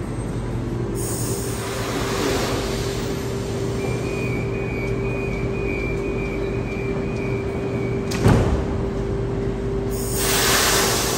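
Sydney Trains double-deck electric train humming at an underground platform. A steady high door-warning tone sounds for about four seconds, then the doors shut with a sharp thump, and a hiss of air follows near the end.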